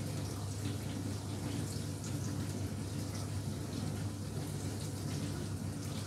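Indesit dishwasher running its cycle: water rushing inside the machine over a steady low hum, with no error beeps.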